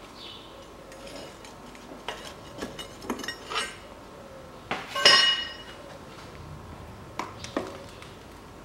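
Metal tools knocking and clinking against a Daewoo Nexia 1.5 engine's cylinder head and camshaft carrier, a handful of sharp clanks, the loudest about five seconds in, ringing briefly.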